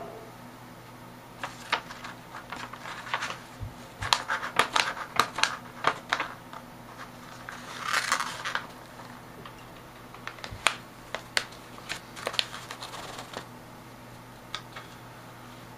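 Sheets of paper rustling and crackling in irregular bursts as a cat noses and paws at them. It is busiest a few seconds in and around the middle, and thins to a few scattered crackles near the end.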